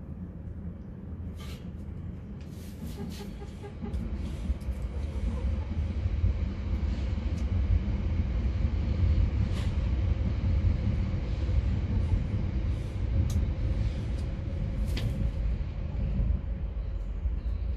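A steady low rumble that grows louder about four seconds in, with a few short scratching clicks from hens foraging in wood shavings.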